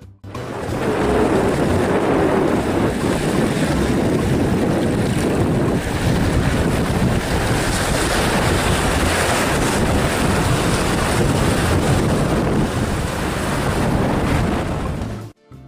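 Wind buffeting the microphone over choppy lake water, with small waves breaking and washing on the shore. The sound starts abruptly and cuts off suddenly near the end.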